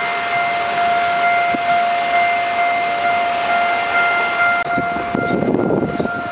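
Tze-Chiang express passenger coaches rolling past, a steady high whine held over the rushing wheel noise. The train noise falls away about five seconds in, leaving wind buffeting the microphone.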